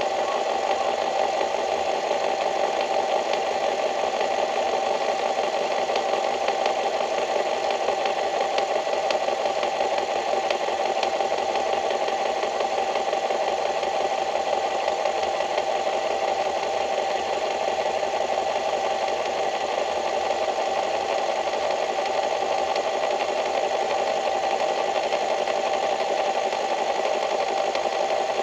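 A small engine running steadily at a constant speed, with a high, even drone.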